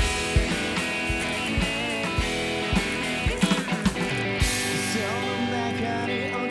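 Rock music with electric guitar and drums: sustained guitar chords over kick-drum hits, with a quick run of drum hits about halfway through.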